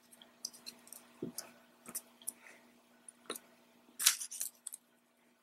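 Small plastic toy stamp pressed and tapped repeatedly onto a sheet of lined paper on a tabletop: a scatter of light taps and paper rustles, the clearest about four seconds in.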